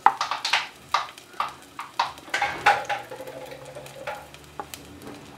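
A spatula scraping and tapping against a plate and a nonstick pan as chopped garlic goes into hot oil and starts to fry: a quick run of scrapes and taps for about three seconds, then softer ones.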